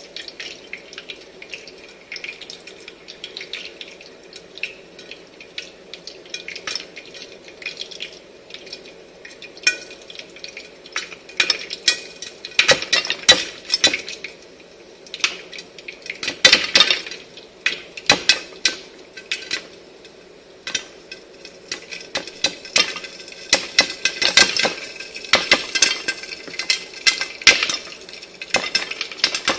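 Popcorn cooking: a steady sizzle with sharp pops of kernels bursting. The pops are scattered at first, then come thicker and in bunches after about ten seconds as the popping gets going.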